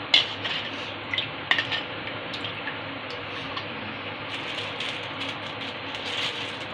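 Spoon stirring thin yogurt in a stainless steel bowl: clicks and scrapes against the metal with liquid swishing, sharpest in the first couple of seconds and lighter after.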